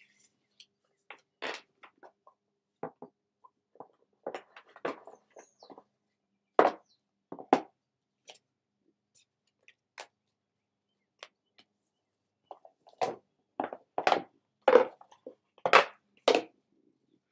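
Tarot cards and their cardboard deck box being handled on a tabletop: irregular taps and knocks as cards and box are set down and tapped, with two sharper knocks in the middle and a quick cluster of louder ones near the end.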